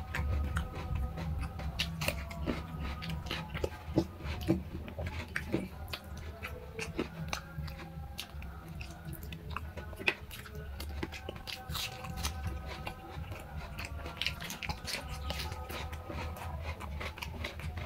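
Eating rice and curry by hand: chewing and wet mouth clicks with fingers working food on a plate, a couple of sharper clicks standing out, over faint background music and a steady low hum.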